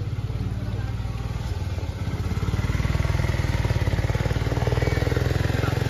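An engine idling: a steady, rapidly pulsing low throb that gets a little louder about two seconds in.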